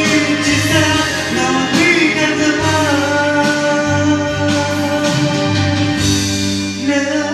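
A person singing a slow song over an instrumental backing track, holding long, wavering notes.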